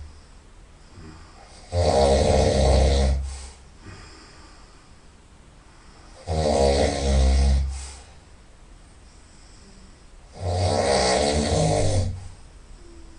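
A person snoring loudly through the nose: three long rattling snores about four seconds apart, with quieter breathing between them.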